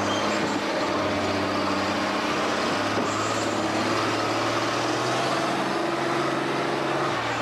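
A motor vehicle's engine running steadily under a noisy haze, its pitch shifting about three seconds in and again near the end.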